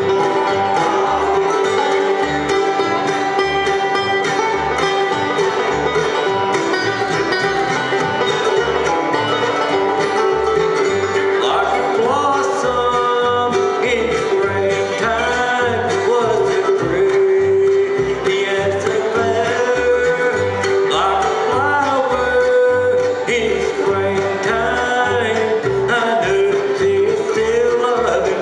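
Live bluegrass band playing a tune on fiddle, acoustic guitars, mandolin, upright bass and banjo, over a steady plucked bass beat.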